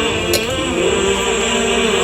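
Background music with chant-like singing over sustained tones.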